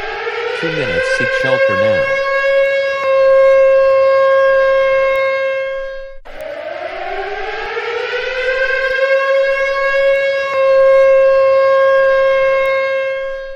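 Civil defense siren sounding an attack warning in repeated cycles: each time it winds up in pitch for about two seconds, holds a steady tone, then cuts off suddenly, twice in this stretch.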